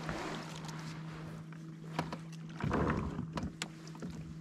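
Kayak on calm water: a steady low hum runs throughout, with light water sounds and a few knocks against the hull, the loudest a thump about two and a half seconds in.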